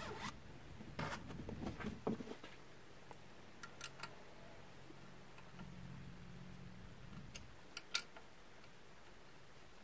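Faint, scattered clicks and taps of a hex key against the screws and metal of a CNC router mount as the screws are tightened, with a sharper tap about eight seconds in.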